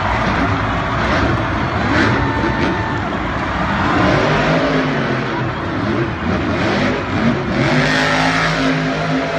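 Monster truck engines, supercharged V8s, revving loudly. The pitch rises and falls in the middle and holds steady near the end.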